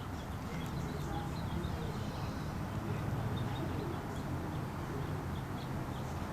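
Steady low background rumble with scattered faint, brief high chirps.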